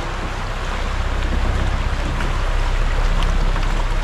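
Shallow creek water rushing over a rocky riffle, a steady rushing hiss, with a low rumble of wind on the microphone.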